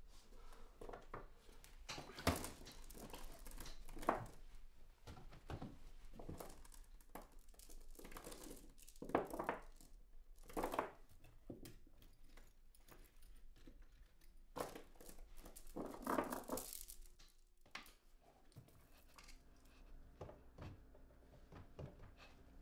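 Soft, irregular rustling and light knocks of someone moving about a quiet room, with a few louder knocks spread through.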